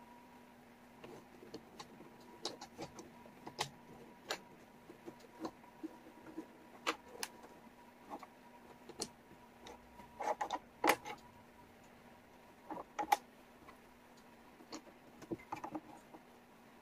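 Wooden jigsaw puzzle pieces clicking and tapping against each other and the table as they are picked up, sorted and fitted, in irregular clicks with a denser run a little past the middle. A faint steady hum sits underneath.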